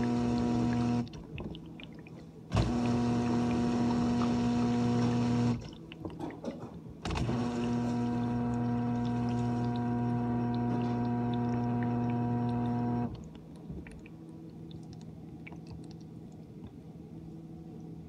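GE dishwasher's pump motor humming, cutting out and starting again three times: a short run, then about three seconds, then about six seconds before it stops. Water swishes faintly in the pauses, and after the last stop a quieter hum goes on with a few faint ticks.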